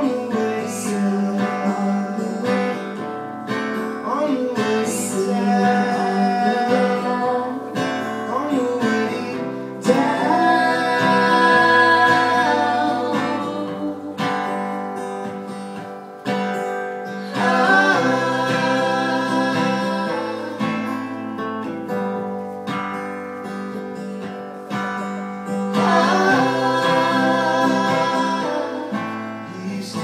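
Live acoustic music: a strummed acoustic guitar carries on through an instrumental stretch between verses, with wordless singing swelling in three times.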